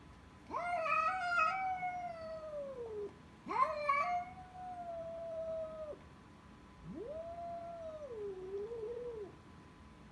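A cat yowling three times, each a long drawn-out call of two to three seconds; the last one wavers and falls at the end. This is a warning caterwaul aimed at another cat during a standoff.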